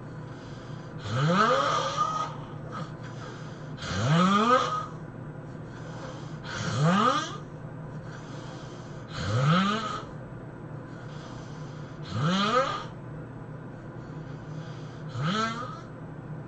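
A person snoring heavily in a steady rhythm: six loud snores about three seconds apart, each rising in pitch, with a softer breath between them.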